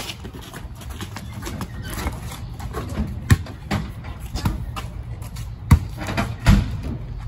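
Basketball bouncing on a concrete driveway: irregular single bounces and dribbles, several sharp thumps, the loudest a little before and after the six-second mark.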